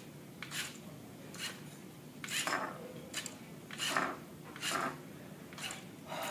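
Small LEGO robot's electric drive motors and gears whirring in short, rasping bursts, about eight at irregular intervals, as it makes small driving and turning moves.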